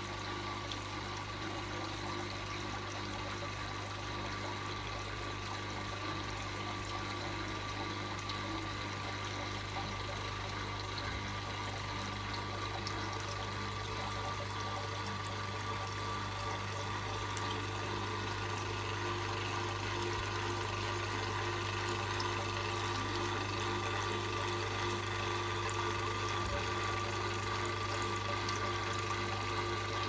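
Slate-style waterfall water feature: a thin stream of water trickling steadily from the upper ledge into a shallow pool, with a steady low hum underneath.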